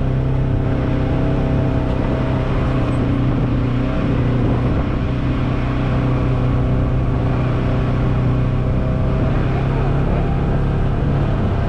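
2022 Polaris General XP 4 UTV's twin-cylinder engine running under way at a steady pace, an even drone with no revving.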